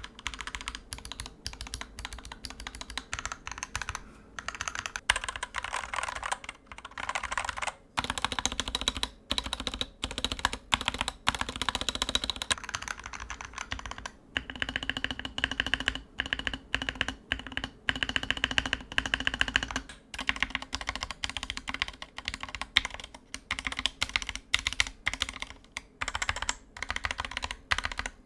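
Fast, continuous typing on a Dierya DK61E 60% mechanical keyboard with hot-swappable Gateron optical switches, lubed with Krytox 205g0 and tape-modded, with short pauses every second or two.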